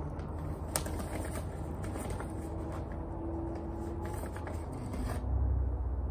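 Granular bonsai soil being poured and scattered onto the surface of the pot: a run of many small gritty ticks and rattles. It starts with a sharp click about a second in and stops abruptly about five seconds in.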